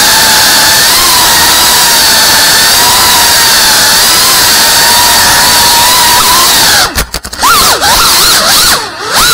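Small FPV quadcopter's brushless motors and propellers whining loudly and steadily, pitch drifting with throttle. About seven seconds in the throttle is chopped and punched: the whine briefly drops away and swoops quickly up and down in pitch, and dips again just before the end.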